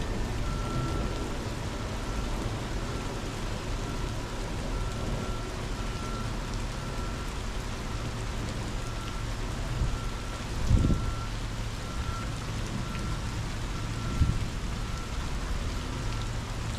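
Heavy rain falling in a steady hiss with a low wind rumble, and a couple of stronger gusts buffeting the microphone, one near the middle and one a few seconds later. Through it runs a faint electronic beeping, about two beeps a second.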